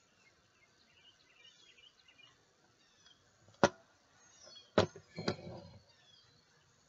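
Three sharp clicks and knocks from a metal Super-8 movie camera body being turned over in the hand, coming in quick succession about halfway through, the last with a short dull rumble. Faint bird chirps run underneath.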